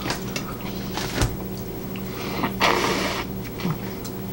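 Dinner-table noises: a few light clicks and a knock of cutlery and plates, then a breathy, hissy rustle lasting about a second, around two to three seconds in, over a steady low hum.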